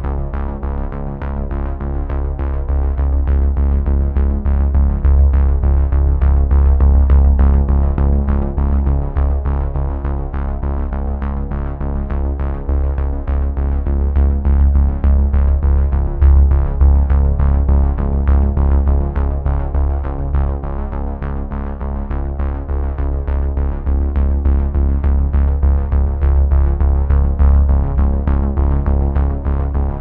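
Background music with a steady beat and a deep bass line.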